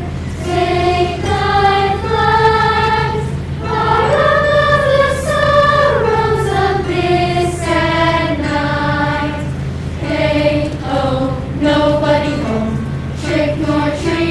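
A group of student singers singing a slow melody together in held notes, with a slide in pitch about five seconds in, over a steady low hum.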